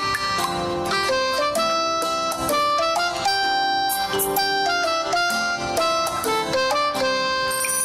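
Background music: a melody of short, stepping notes over a steady percussive beat.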